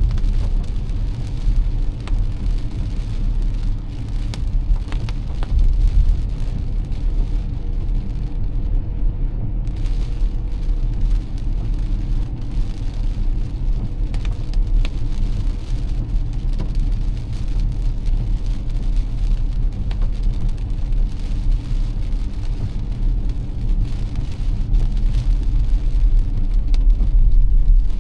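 Car driving through heavy rain: a steady low road rumble with the hiss of rain and wet road, and scattered taps of raindrops.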